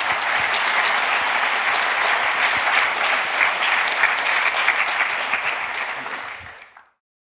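Audience applauding: dense, steady clapping that fades away near the end.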